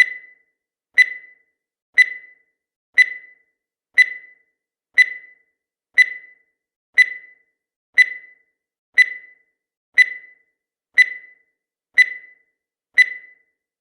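Countdown timer sound effect: a short, high-pitched beep once every second, each one dying away quickly, fourteen in a row.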